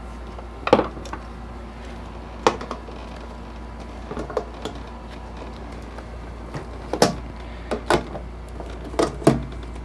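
Clips on a shipping crate being unfastened by hand: a scattered string of sharp clicks and knocks, bunched toward the end, over a steady low hum.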